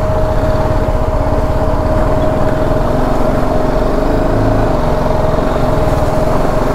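Single-cylinder engine of a BMW G 310 GS motorcycle running steadily at low revs, with a steady whining tone through it.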